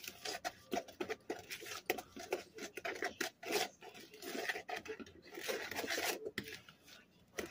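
A utensil stirring and scraping creamed butter and sugar around a plastic mixing bowl by hand, in quick, irregular strokes.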